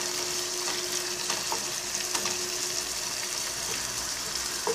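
Ground beef sizzling as it browns in a little vegetable oil in a pan: a steady frying hiss with scattered small crackles, while a wooden spoon stirs through the meat.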